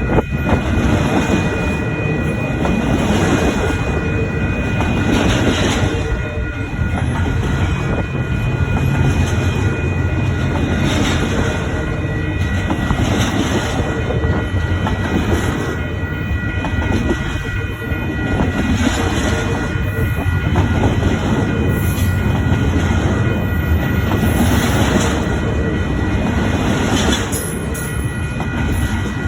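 Cars of a long intermodal freight train rolling past with a steady rumble, their wheels clattering over the rail joints in a beat that comes round about every two seconds.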